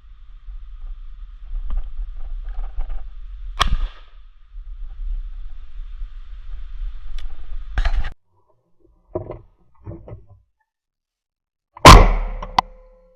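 Shotgun shots, three sharp reports a few seconds apart over a low rumble. The last is the loudest and rings away afterwards.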